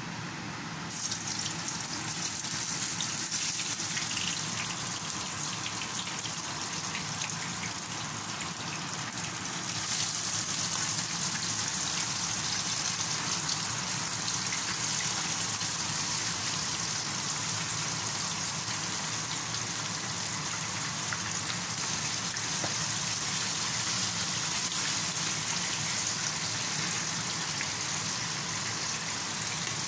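Flour-dredged milkfish (bangus) pieces frying in hot oil in a pan: a steady, crackling sizzle like rain. It starts suddenly about a second in and gets louder again about ten seconds in.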